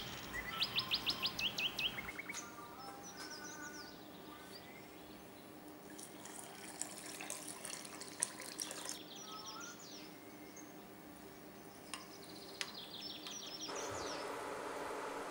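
Birds chirping and calling, loudest in a fast trill near the start. Water pours into a glass bowl of rice from about six to nine seconds in. Near the end a steady hiss sets in from a pot of water coming to a boil.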